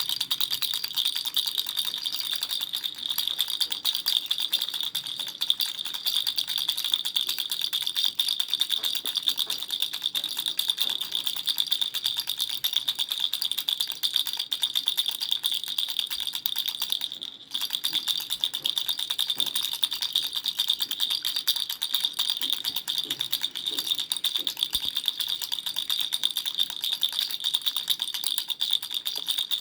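Baby rattle shaken continuously, a fast, dense stream of small rattling clicks with a brief break about 17 seconds in.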